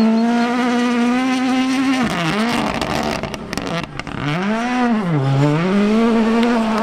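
Ford Puma Rally1 rally car's turbocharged four-cylinder engine at high revs. The revs drop and climb back briefly about two seconds in, then fall further and rise again about five seconds in.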